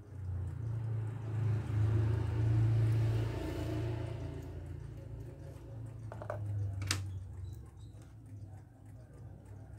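Low engine rumble of a passing motor vehicle, swelling over the first few seconds and then slowly fading, with one sharp click about seven seconds in.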